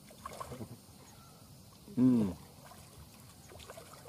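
Faint splashing and sloshing of pond water as a fish thrashes at the surface, with a short vocal exclamation about two seconds in.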